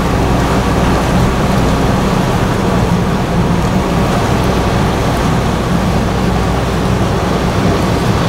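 Yacht underway: a steady low engine hum under a constant hiss of rushing water.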